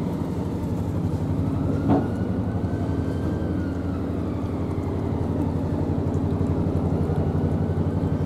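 Narrowboat diesel engine chugging steadily at low revs, with an even, rapid pulse. A single sharp knock sounds about two seconds in.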